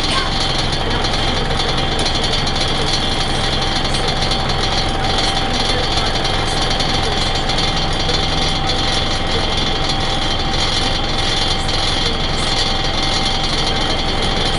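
Scania L113CRL single-decker bus's rear-mounted six-cylinder diesel running steadily, heard from inside the passenger saloon, with the East Lancs body and fittings rattling.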